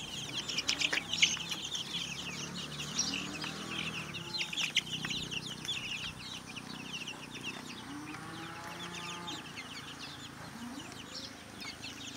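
A crateful of Sasso F1 chicks peeping all at once, a continuous chorus of many high, short, overlapping cheeps, loudest in the first couple of seconds.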